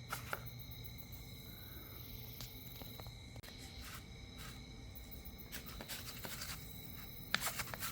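Faint scraping and light clicks of a two-part epoxy glue being mixed and handled, with a few sharper clicks near the end, over a steady faint high-pitched whine.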